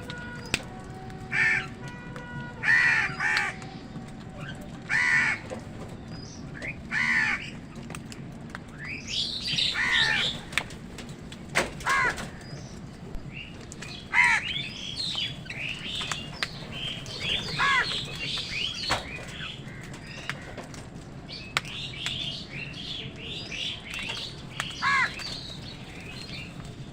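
Crows cawing over and over, short harsh calls a second or two apart, with smaller birds chirping among them through much of the stretch.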